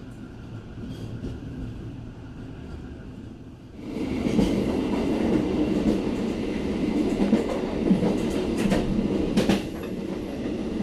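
Passenger train running along the track, heard from on board: a quieter steady rumble at first, then about four seconds in a louder rumble of wheels on rails with a few sharp clicks of wheels passing rail joints.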